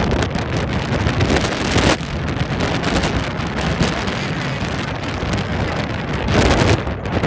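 Strong wind buffeting the microphone: a continuous rushing roar that swells in a gust near the end.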